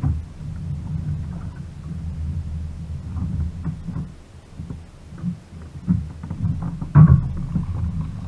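Low rumble of handling and wind noise on a body-worn action camera as an angler fights a fish from a kayak, with a sharp loud thump about seven seconds in.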